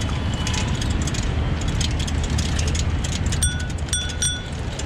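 A bicycle bell rung three times in quick succession about three and a half seconds in, over the steady low rumble and light rattling of a bike-share bicycle riding along a paved path.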